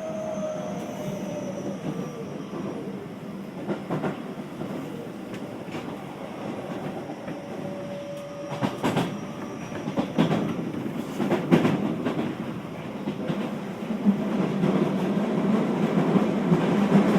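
Onboard running sound of a Keio 5000-series train: a steady rumble, with wheels clacking sharply over rail joints several times. A faint whine slides down in pitch in the first few seconds, and the rumble grows louder over the last few seconds.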